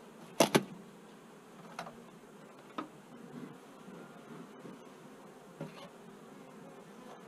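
Honeybees buzzing steadily around an open top-bar hive. Two sharp knocks come about half a second in, the loudest sounds, with a few fainter knocks later.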